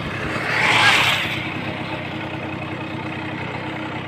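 Motorcycle engine running steadily while riding, with a brief rushing noise that swells and fades about a second in.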